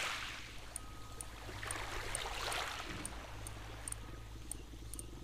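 Shallow seawater washing and trickling, swelling about two seconds in. A low buzz joins about three seconds in, with faint scattered ticks.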